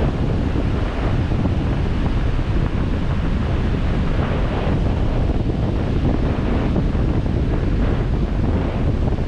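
Wind buffeting the microphone of a camera on a 4x4 driving slowly along the beach, a steady low rumble, with surf washing in alongside.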